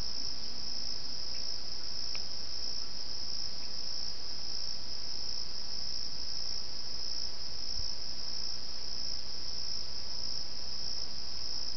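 Steady, unbroken high-pitched trilling of a cricket chorus picked up by a trail camera's microphone, over a faint low hum. A faint low wavering tone sounds briefly in the first second.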